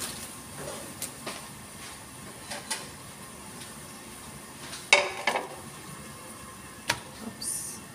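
Kitchen clatter over a lit gas burner: scattered metal clicks and knocks on the cast-iron grate, loudest about five seconds in and again near seven seconds, over a steady background rush, with a short hiss near the end.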